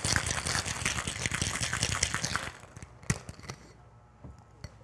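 Ice rattling hard inside a metal cocktail shaker tin as it is shaken fast, stopping suddenly about two and a half seconds in. A sharp knock follows as the shaker is broken apart, then a few light clinks.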